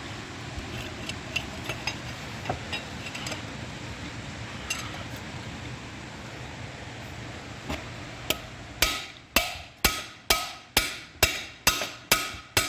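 Hammer blows on a long bar driving a stuck roller bearing out of a John Deere 830 clutch: a few light taps, then from about nine seconds in a steady run of loud, ringing strikes, about two a second.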